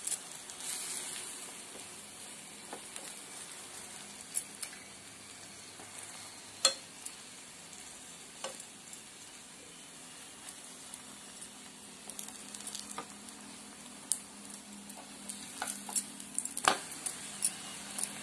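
Ghee sizzling steadily under a wheat-flour paratha in a non-stick pan over a low gas flame. A steel spoon scrapes and clicks against the pan now and then as it spreads the ghee, with a run of clicks near the end.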